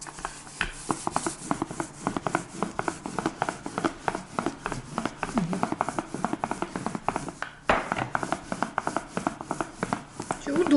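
Plastic rolling pin worked back and forth over a thin sheet of dough on a floured countertop: a steady rubbing with a fast run of small clicks, and one louder knock about two-thirds of the way through.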